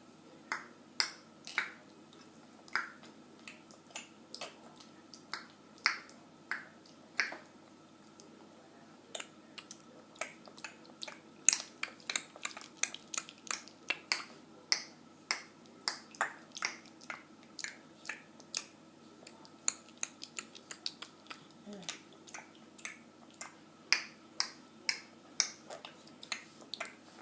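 A young child clicking her tongue over and over: sharp, irregular clicks about one to three a second, coming quicker in places.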